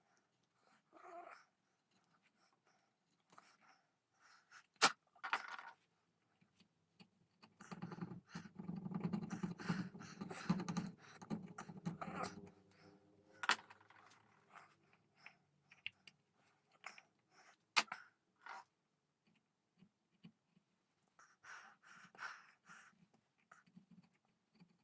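Wood chisel cutting into a gunstock to inlet a double set trigger: faint scattered scrapes and clicks, two sharp taps, and a longer spell of steady scraping in the middle.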